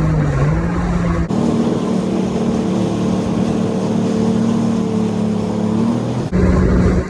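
Jet ski engine running at a steady cruising speed, a constant pitched hum over the rush of water and wind, with the pitch edging up slightly near the end of the long middle stretch. The sound changes abruptly about a second in and again about six seconds in, like a jump between different stretches of riding.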